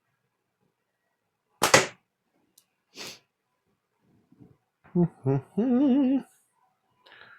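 Slingshot shot with 8mm steel: a loud sharp crack, then a softer hissing hit about a second later. Near the end a man's voice makes two short sounds and then hums a wavering note.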